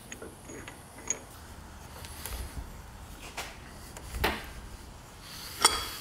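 Steel hand tools clinking and clanking against a trailer hitch ball and ball mount as a large adjustable wrench and pliers are fitted to the ball and its nut. There are a few sharp metallic knocks, the loudest near the end.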